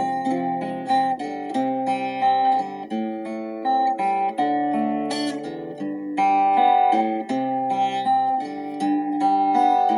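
Instrumental music: acoustic guitar playing plucked notes and chords in a slow, calm worship piece.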